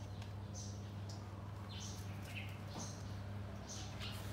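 Short, high-pitched chirps repeating about once or twice a second, like a small bird calling, over a steady low hum.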